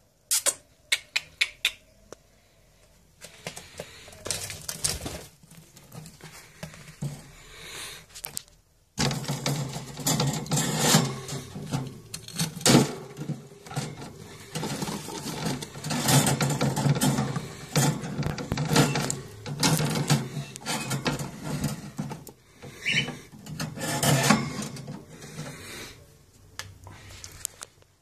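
Cockatiel pecking and cracking seeds: rapid, irregular clicking and crackling. A quick run of sharp clicks comes at the start, and denser clicking starts about a third of the way in and runs through most of the rest.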